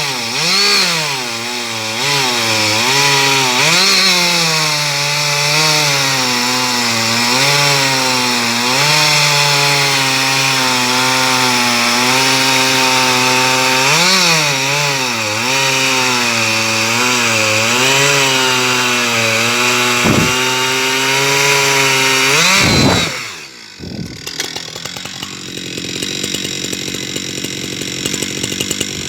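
Husqvarna 372 XP two-stroke chainsaw with a carbide-tipped chain cutting wood at high revs, its pitch repeatedly dipping and recovering as the chain loads in the cut. About 23 seconds in it revs briefly, then the throttle is released and it drops to a lower, steady idle.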